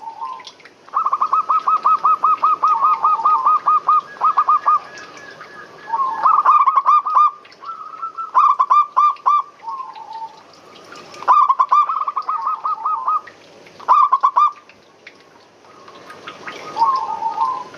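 Zebra doves (perkutut) cooing: phrases of rapid, rolling staccato coos, each a second or two long, following one another with short pauses.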